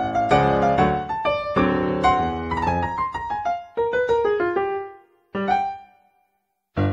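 Background piano music, a light melody of struck notes. It thins to a few ringing notes, falls silent briefly near the end, then starts again.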